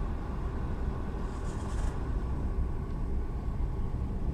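Steady low rumble of a Mk1 Seat Leon Cupra with its ignition on, heard inside the cabin, with a brief faint high rattle about a second and a half in.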